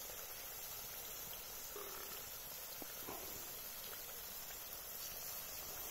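Faint night forest ambience: a steady high hiss of insects, with two faint brief sounds about two and three seconds in.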